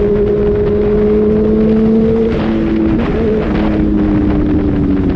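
A vehicle engine running steadily, a droning tone that rises slowly, then drops in pitch about three seconds in, over loud road and wind rush.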